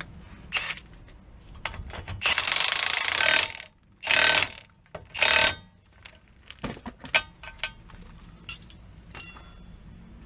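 Three loud bursts from a power tool, the first about a second long and the others shorter, followed by a run of sharp metallic clinks and clicks of tools, one ringing briefly near the end.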